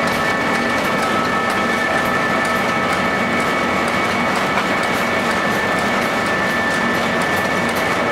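XGJ850 vertical ring-die sawdust pellet mill running steadily while making pellets: a constant mechanical din with a steady high whine of several tones and light scattered ticking.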